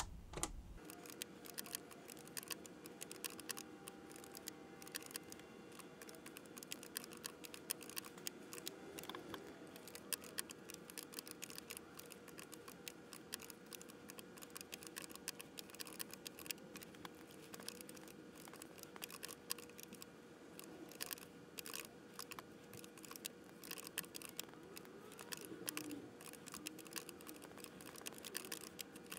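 Rapid, faint clicking of keys being typed on a TRS-80 Color Computer 1 keyboard, over a faint steady hum.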